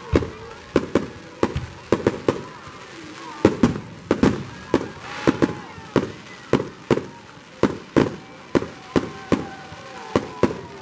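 Fireworks display: aerial shells bursting in a rapid, uneven run of sharp bangs, about two or three a second, each with a short echoing tail.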